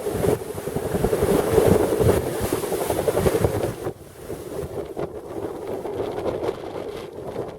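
Strong gusty wind buffeting the microphone on a sailing boat. It is loudest for the first four seconds, then drops off sharply and carries on more weakly.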